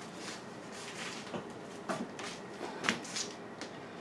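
Faint, scattered light knocks and rustles of small objects being handled on a tabletop, a few seconds apart, with the loudest around the middle.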